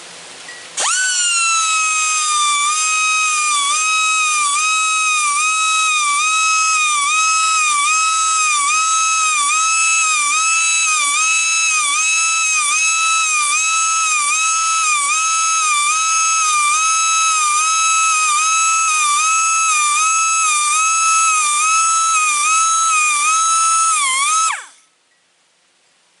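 Small high-speed electric sharpening tool whining as it files the teeth of a band sawmill blade, its pitch dipping briefly about once a second as it bites into each tooth. It starts about a second in and cuts off sharply near the end.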